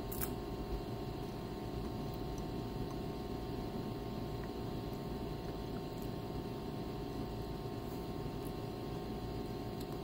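Steady low room hum and hiss, with a few faint, sparse clicks of chewing a chocolate-covered cicada.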